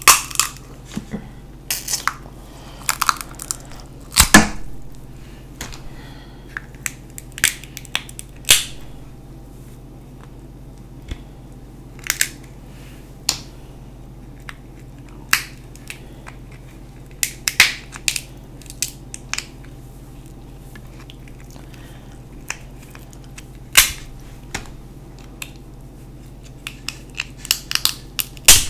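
Crab leg shells cracked and snapped apart by hand close to the microphone: irregular sharp cracks every second or so, the loudest around four seconds in, between bites and chewing of the crab meat.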